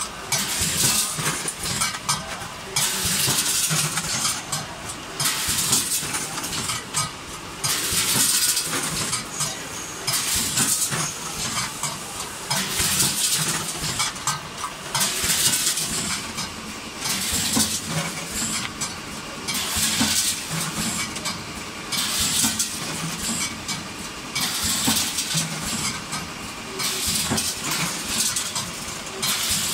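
Vertical form-fill-seal packing machine running through its bagging cycle: a steady mechanical clatter with a hiss repeating about every two and a half seconds.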